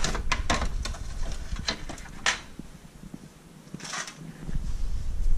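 Plastic parts of an espresso machine being handled: a quick run of clicks and knocks as the drip tray and water base are pulled out, then a short scrape about four seconds in.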